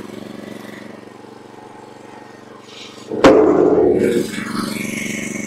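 Petrol hydraulic log splitter's engine running steadily. About three seconds in there is a sharp crack, and for about a second afterwards the engine runs louder and rougher.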